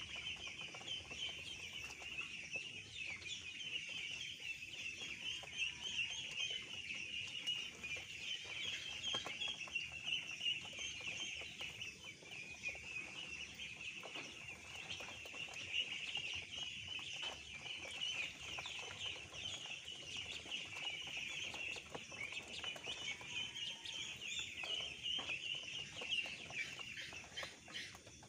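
A flock of two-week-old ducklings peeping nonstop, many high, thin calls overlapping into one continuous chorus.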